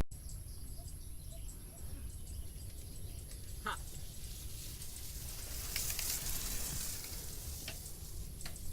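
Mountain bike rolling over a dirt trail: low rumble of wind and tyres on the microphone, with a sharp click about a third of the way in and a stretch of hiss past the middle. A steady high insect drone sits over it.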